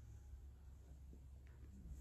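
Near silence, with a faint steady low rumble.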